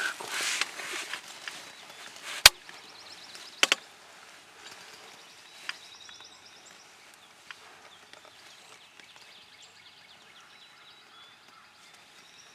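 Outdoor rustling with a few sharp clicks or snaps, the loudest about two and a half seconds in and a double one just after. Faint rapid high trills run underneath.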